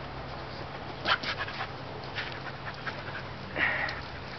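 Dog panting in the heat: quick, irregular breaths, with a somewhat louder breath or whine near the end.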